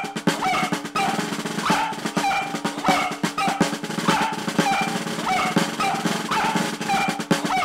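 Background music with a steady drum beat and percussion.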